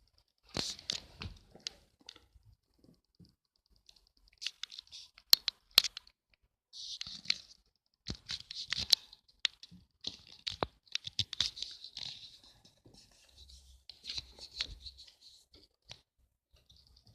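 Irregular scratching and rustling noises broken by sharp clicks, coming in short bursts with brief pauses between them.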